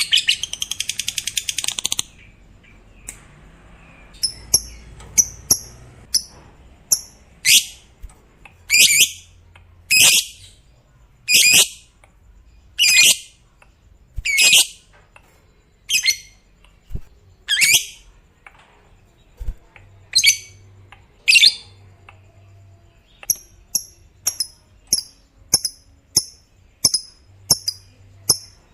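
Lovebird calling: a fast rattling chatter (ngekek) for about two seconds, then single shrill calls about every one and a half seconds, each falling in pitch. Softer, quick high chirps come between them, in short runs near the end.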